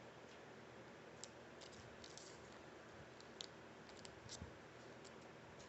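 Near silence with a few faint, scattered clicks and crinkles of trading cards being handled and slid into plastic card sleeves.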